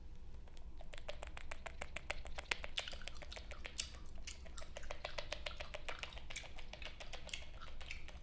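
Long fingernails tapping and clicking in a quick, uneven run of sharp clicks, several a second, starting about a second in.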